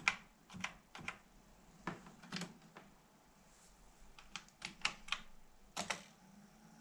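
Keys being pressed on an Amstrad CPC464's keyboard: about a dozen separate key clicks at an uneven pace, as the newly revived computer is tested. A faint steady hum sets in near the end.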